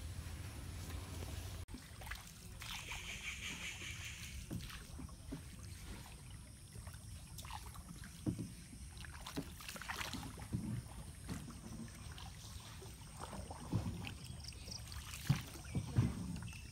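Wooden canoe being paddled along a calm canal: a single paddle dips and splashes, with water dripping and lapping and scattered sharp knocks, the loudest near the end.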